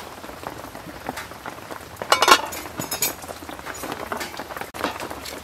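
Metal ladle stirring a pot of simmering sour catfish soup, then a metal pot lid clinking and clanking as it is set on the pot about two seconds in, with a smaller clink a second later. A steady hiss of rain runs behind.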